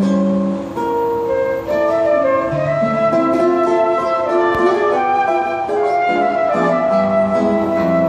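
Concert flute playing a Brazilian bossa nova ballad melody in held notes, with acoustic guitar accompaniment underneath.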